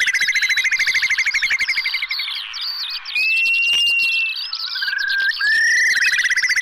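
Curlew calling: a fast rippling trill of whistled notes that breaks off about two seconds in, a long level whistle, then short rising whistles before the trill starts again near the end. Many smaller bird chirps sound higher up throughout.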